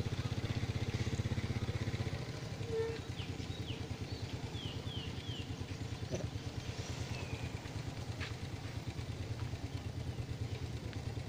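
A small engine idling steadily, a fast even low pulsing hum. Between about three and five seconds in, a quick run of short falling chirps sounds over it.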